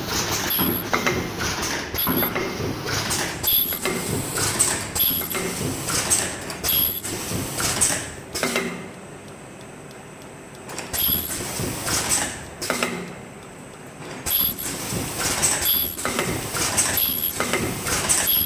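Ultrasonic mask earloop welding machine with folding and counting conveyor running: mechanical clatter and clicks that repeat in a cycle about every one and a half seconds, with two short quieter lulls in the middle.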